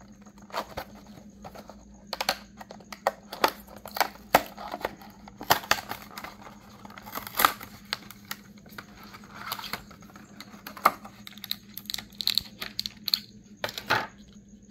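A die-cast toy car's blister pack being opened by hand: the card backing tearing and the clear plastic blister crinkling, with irregular sharp crackles and snaps.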